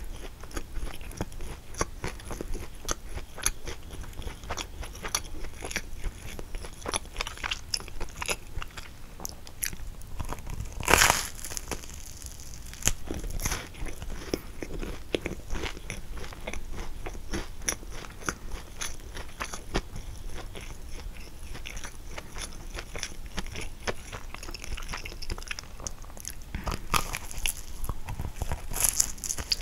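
A person eating a kouign-amann: crisp bites into the caramelized, flaky crust and chewing, with many small crackles throughout. There is one loud crunching bite about eleven seconds in and more bites near the end.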